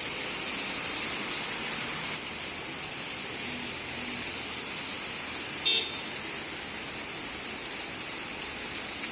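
Steady hiss of heavy rain in a downpour. About two-thirds of the way through comes one short, loud, high-pitched toot.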